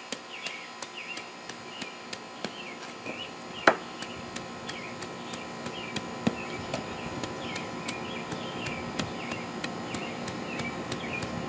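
Sledgehammer head tamping down fresh cold-patch blacktop asphalt: irregular soft thuds, with one sharp, loud knock about four seconds in and a lesser one a few seconds later. Faint repeated chirps in the background.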